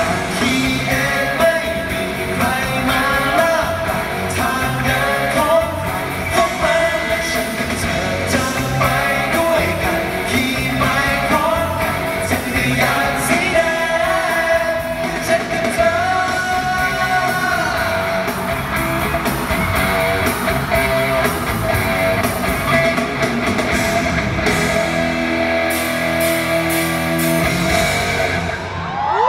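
Live pop-rock song: male voices singing over a band with bass guitar and keyboard. The music stops abruptly near the end.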